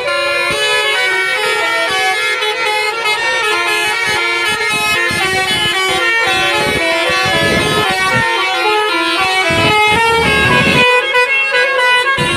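Telolet bus horn, a multi-tone air horn, playing a quick melody. The notes change in steps with no pause between them, and there are low thumps in the middle stretch.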